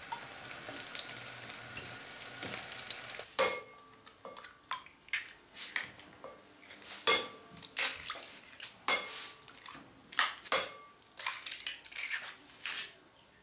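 Vegetables sizzling in olive oil in a frying pan for the first few seconds. Then eggs are cracked one after another against a glass bowl: a string of sharp taps and clinks.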